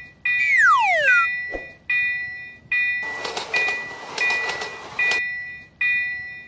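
Cartoon level-crossing warning bell ringing "kan-kan", one ding about every three quarters of a second, after a descending cartoon whistle glide in the first second. From about three seconds in, a rushing noise runs for about two seconds under the bell as an animated train passes.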